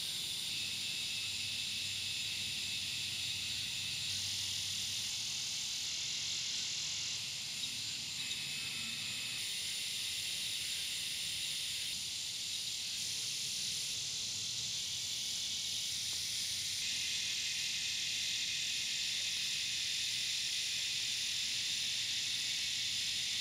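Steady, high-pitched evening chorus of insects such as crickets, chirring without a break.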